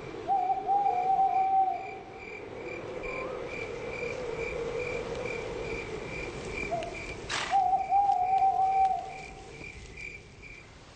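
Night ambience of crickets chirping in a steady pulsing rhythm, a few chirps a second. A long wavering hoot, opened by a short note, sounds twice about seven seconds apart, and a single sharp crack comes just before the second one.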